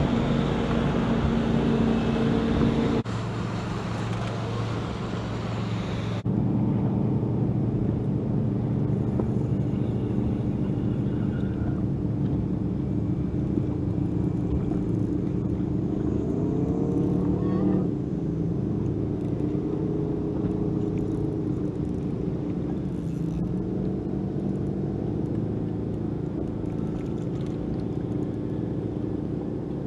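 Steady hum of a boat motor with a rising pitch bend about sixteen seconds in, and wind buffeting the microphone for the first few seconds.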